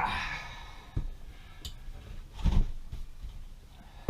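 IWISS hand wire-rope swaging tool crimping a ferrule onto 1/8 inch wire rope. The tool's jaws and handles give a few sharp clicks and knocks, and there is a softer thud in the middle, with a sigh-like breath of effort.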